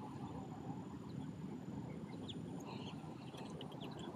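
Outdoor lakeside ambience: a low steady rumble with a few faint, short bird chirps in the second half.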